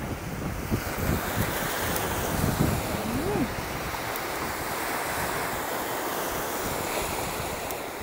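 Sea waves washing against shoreline rocks, a steady surf hiss, with wind buffeting the microphone in low rumbling gusts during the first few seconds.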